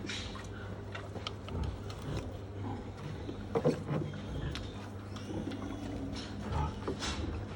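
Steady low mechanical hum from barn equipment, with scattered clicks and knocks of handling and a louder knock about three and a half seconds in.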